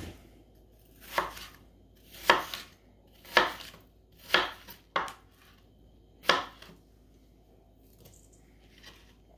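Chef's knife rough-chopping apple wedges on a cutting board: about six sharp chops, roughly one a second, stopping about six and a half seconds in.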